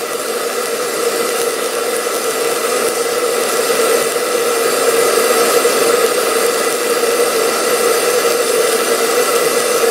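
Stick-welding arc hissing steadily with a steady hum underneath, as a 3/32-inch 7018 low-hydrogen rod is run along the ground-out crack in a cast iron boat exhaust manifold.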